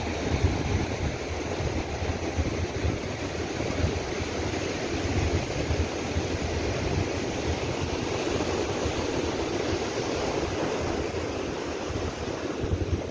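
Wind buffeting the phone's microphone in uneven low gusts over the steady wash of breaking surf.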